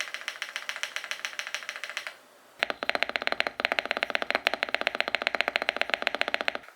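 Fast typing on the Evoworks EVO80 custom mechanical keyboard: a rapid, even stream of key clacks, many strokes a second. It breaks off briefly about two seconds in, then carries on.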